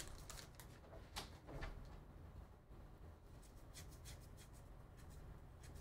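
Faint handling of a torn-open trading-card pack: a few light crinkles of the wrapper in the first two seconds, then the soft slide of cards being pulled out and fanned, over a low steady hum. Otherwise near silence.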